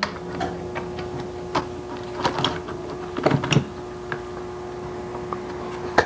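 Scattered small clicks and light knocks of metal lock hardware being handled and seated into a wooden door: the exterior assembly of a Kwikset Kevo deadbolt going into place. A faint steady hum runs underneath.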